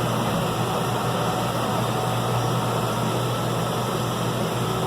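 John Deere 6105M tractor's four-cylinder diesel engine running at a steady pitch as it pulls through deep snow, heard from inside the cab over a constant hiss.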